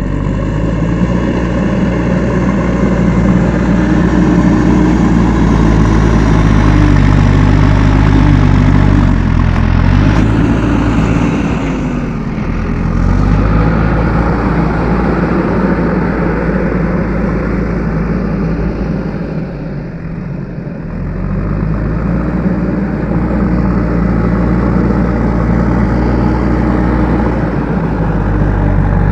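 JCB 3DX backhoe loader's diesel engine running steadily under work. The revs drop and pick up again twice, about a third of the way through and about two-thirds in.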